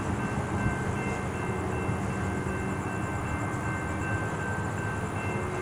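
Railroad crossing bells ringing as the gates rise, an electronic bell sounding in steady tones while a failing mechanical bell only clicks and ticks. Under them the departing freight train keeps up a steady low rumble.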